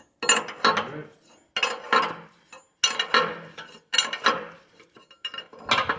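Rhythmic metal clanking and rattling, five or six strokes about a second apart, as a long steel bar is worked against a steel tractor-splitting stand.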